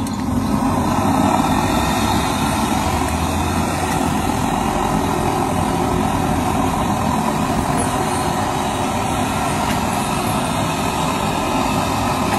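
Hot oil sizzling steadily around dozens of boiled eggs deep-frying together on a wide flat pan.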